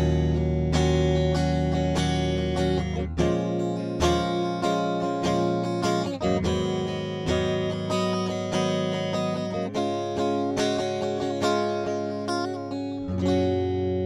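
Sterling SUB Series AX3 electric guitar played with an undistorted tone on its bridge pickup split to single coil (selector position 4). Picked and strummed chords follow one another, and the last chord, struck near the end, is left ringing.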